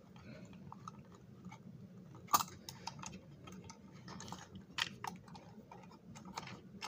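Light clicks and knocks of a plastic model locomotive shell being handled and lined up on its chassis, with a sharper click about two and a half seconds in and another near five seconds.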